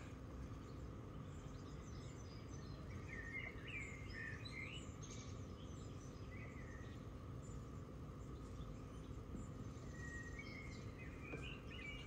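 Faint bird chirps, a few short gliding calls a few seconds in and again near the end, over a steady low hum.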